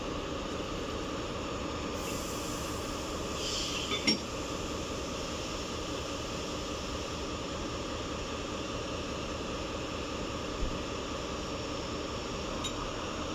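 Steady hum of a stationary PESA Gama locomotive standing coupled to a coach. About four seconds in there is a short hiss of air and a sharp metallic clink, with a dull knock later on.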